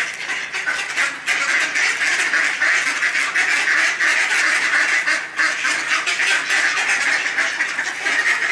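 A large flock of mallard ducks quacking continuously, many birds calling over one another as they crowd around to be fed.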